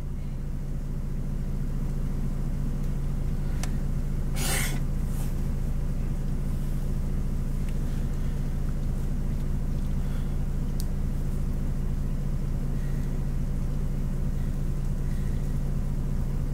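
Steady low hum and rumble of a car's engine running, heard from inside the cabin, with a short noise about four and a half seconds in.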